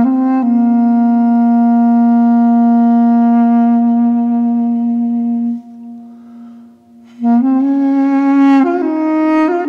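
Solo wind instrument playing a slow melody: one long held low note for about five seconds, a soft lull, then a phrase of shorter notes from about seven seconds in.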